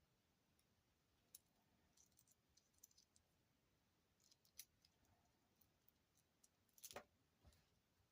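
Near silence with faint, scattered clicks of beads and beading wire being handled, the clearest about seven seconds in.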